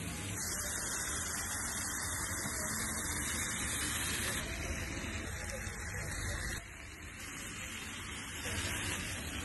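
Beef fajitas with peppers and onions sizzling on a hot skillet plate: a steady hiss that steps up or down in level a few times.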